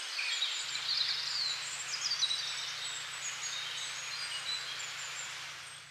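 Several small birds chirping and singing over a steady outdoor hiss, fading out near the end.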